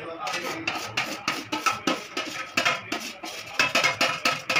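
Metal spatula scraping and clinking against a steel plate as fried fish pieces are pushed off it into a kadai of curry, in repeated irregular clinks and scrapes.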